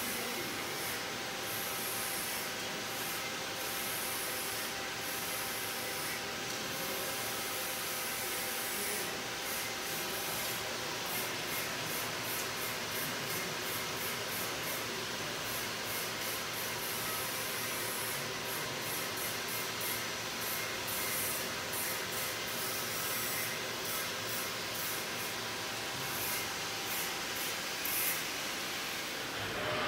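Steady hiss with a faint hum from a cylinder head grinding and milling machine running, its level even throughout.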